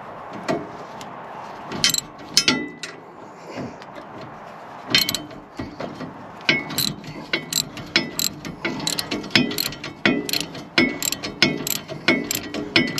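Socket ratchet wrench clicking as a new shear bolt is tightened on a snowblower's auger shaft. A few scattered clicks come first, then from about five seconds in a quick, regular run of ratchet clicks, a few a second.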